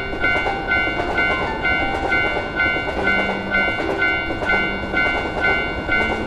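Japanese railroad crossing bell ringing its "kan-kan" about twice a second while a train passes with a steady rushing rumble.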